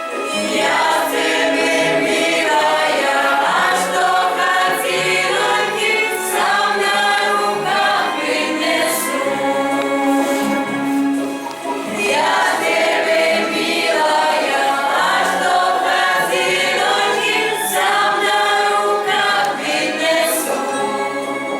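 A choir of voices singing a song together, with a brief dip in the middle of the song.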